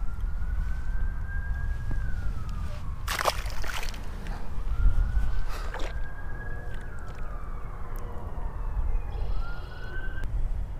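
A faint siren wailing, its pitch slowly rising and falling about every four seconds, over a steady low rumble of wind on the microphone. A sharp splash comes about three seconds in, with a smaller knock near six seconds.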